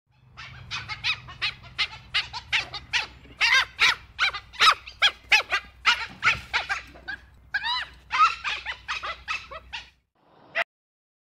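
Dhole (Asiatic wild dog) calling: a rapid run of short, high, squeaky yelps and whistles, two to three a second, over a low steady hum. The calls stop about ten seconds in, and one lone call follows just before the end.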